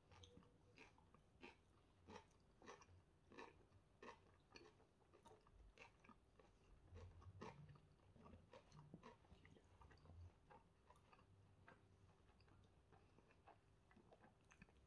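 A person chewing a mouthful of chicken shawarma wrapped in pita, close to the microphone. The chews come about every half second for the first few seconds, then grow sparser.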